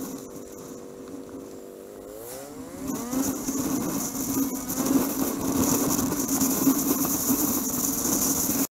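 Motorcycle engine running steadily at light throttle, then rising in pitch as the bike accelerates about two seconds in. Wind and road noise grow louder after that, and the sound cuts off abruptly near the end.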